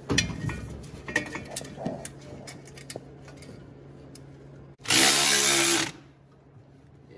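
Light metal clinks and knocks as a turbocharger housing is handled into place. About five seconds in, a cordless electric ratchet runs loudly for about a second, driving a bolt on the turbo.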